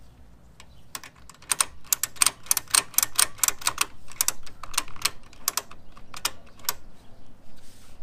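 A ratchet clicking in quick, uneven runs of sharp metal clicks, starting about a second in and stopping a little before the end.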